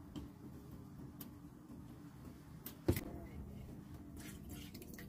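A faint steady low hum with light scattered ticks under a simmering pan of sauce, and one sharp clink about three seconds in as a spoon knocks against the small bowl of cornstarch slurry.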